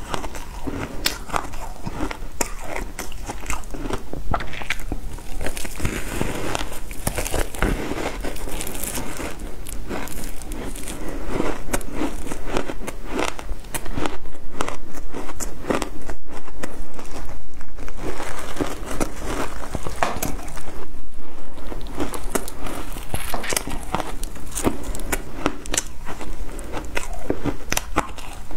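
Frozen shaved ice crunching as it is bitten and chewed: a steady run of sharp crackles and crunches, denser and louder about halfway through.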